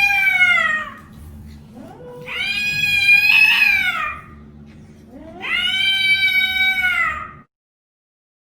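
Cat yowling: three long, drawn-out, high-pitched meows, each falling in pitch at its end. The first is already under way at the start, and the sound cuts off suddenly a second before the end.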